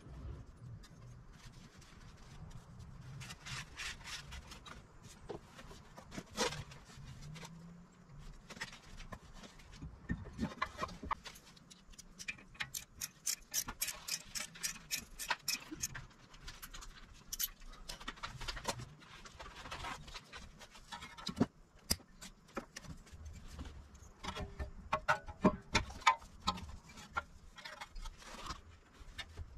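Irregular metallic clicks, clinks and scrapes of hand tools and brake parts being handled as the brake rotor and caliper are refitted to the wheel hub, with a quick run of clicks around the middle and louder knocks near the end.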